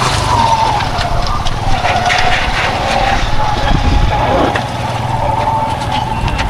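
Vehicle running along the road: a steady low engine drone with a steady, slightly wavering high whine over it.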